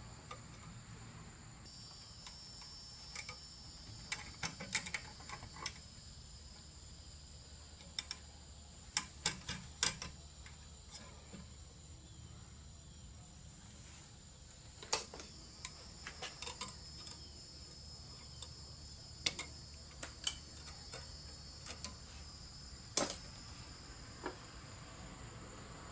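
Scattered clicks and taps of electrical conductors being worked into a metal generator inlet box, in small clusters, over a steady high-pitched chorus of insects.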